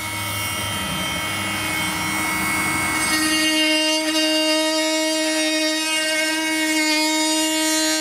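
Makita cordless oscillating multi-tool with its blade plunge-cutting into a wooden board: a steady, high buzzing whine that settles into one even pitch about three seconds in.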